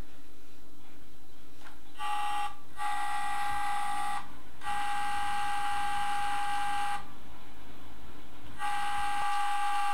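DJI H3-D3 gimbal's motors giving off a loud, steady, high-pitched whine that starts about two seconds in and comes in spells of one to two seconds with short breaks. It is the never-ending gimbal noise that the owner traces to a penny coin he had added as a counterweight.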